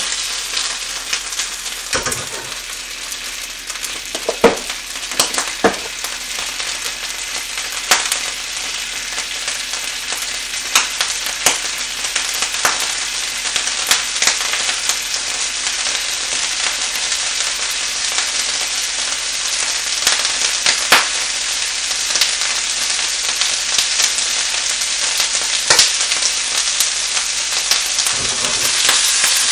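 Small pieces of food frying in oil in a small square frying pan, with a steady sizzle that grows slightly stronger over time. Sharp clicks and knocks come now and then.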